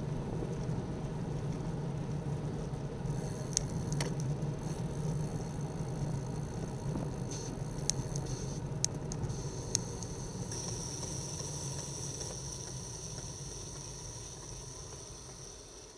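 Wind and road rumble picked up by a bicycle-mounted camera while riding, with a thin high whirr and a few sharp clicks; the noise dies away near the end as the bike slows to a stop.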